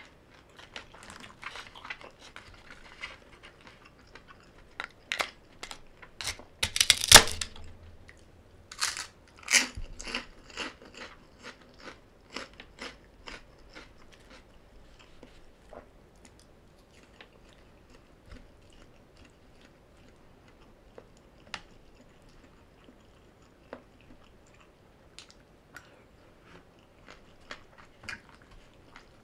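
Close-miked chewing and crunching of crisp food in a mukbang. The loudest crunchy bites come about 7 and 10 seconds in, and the chewing grows sparser and quieter toward the end.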